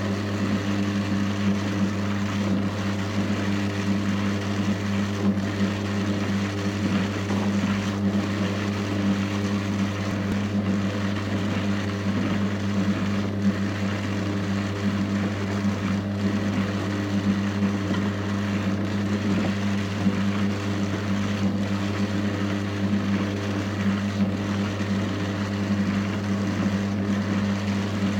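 Electric drum carder's motor running steadily, a constant low hum, while wool is fed onto the drum. A faint tick repeats about every two and a half seconds.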